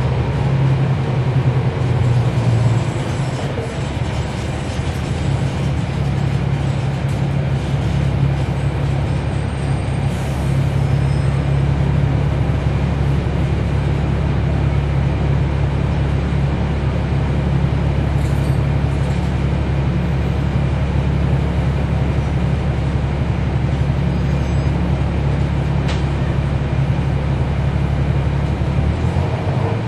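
Cummins ISL9 diesel engine of a NABI 40-SFW transit bus running with a steady low drone, heard from aboard the bus.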